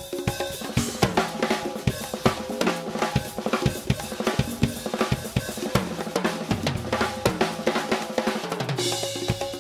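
Acoustic drum kit played fast and busy: dense kick, snare and cymbal strokes over a backing track with a stepping bass line. A bright cymbal wash rings out near the end.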